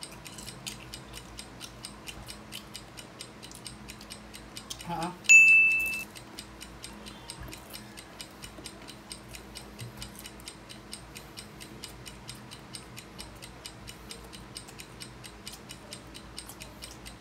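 Steady, fast clock-like ticking of a countdown timer. About five seconds in there is one short, bright chime, the loudest sound here.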